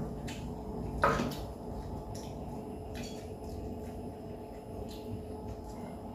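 Faint, scattered clinks and taps of chopsticks and spoons against ceramic bowls and plates, the loudest a little after a second in, over a steady low hum.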